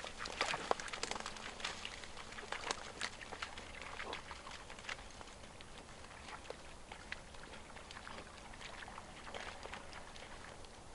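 Scattered crunching steps and small clicks on an outdoor path, dense for the first few seconds and then thinning to occasional ticks over faint outdoor background noise.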